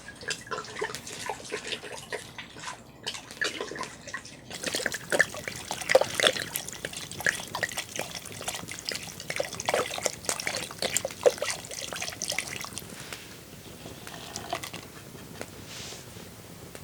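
Red wine poured into a cooking pot, splashing and gurgling for about eight seconds before tailing off. A few small clicks and drips come before the pour starts.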